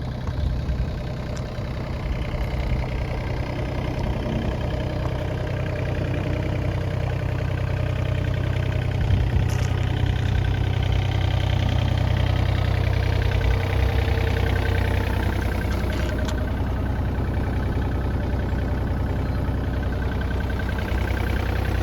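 Komatsu PC27MR-2 mini excavator's diesel engine running steadily, growing a little louder after a few seconds.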